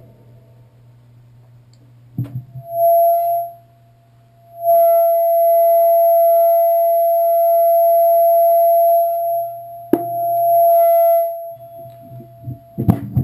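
A steady, pure high tone like a whistle, sounding briefly, then held for about five seconds, then briefly again. Sharp clicks come about two seconds in and about ten seconds in, and a few knocks near the end.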